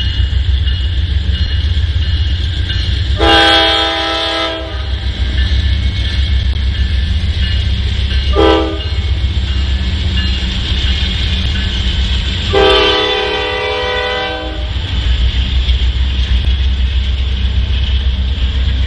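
Norfolk Southern diesel locomotives hauling a double-stack container train past with a steady low rumble. The multi-note air horn sounds three times: a long blast, a short blast, then another long blast.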